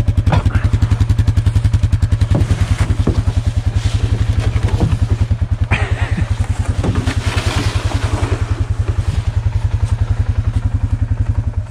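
Suzuki Vinson 500 ATV's single-cylinder four-stroke engine idling with a steady, rapid beat, with a few knocks of handling over it.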